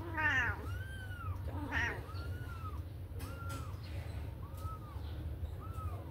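Kittens mewing over and over: short, high, arched mews about once a second. Two louder meows come at the very start and about two seconds in.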